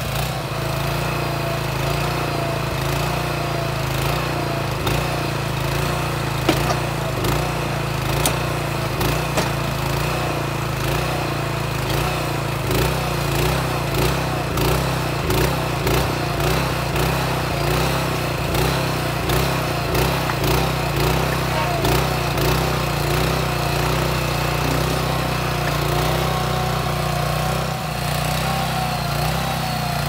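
9.5-horsepower gasoline engine of a portable mini backhoe running steadily and driving its hydraulic pump while digging, its pitch wavering slightly under load. Many short clicks and knocks sound throughout.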